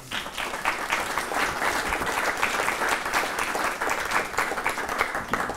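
Audience applauding: dense clapping that starts at once and dies away near the end.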